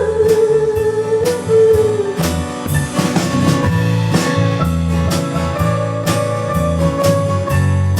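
Live band playing an instrumental passage of a country-folk song: guitars over a steady drum beat and bass, with a held wavering note in the first two seconds.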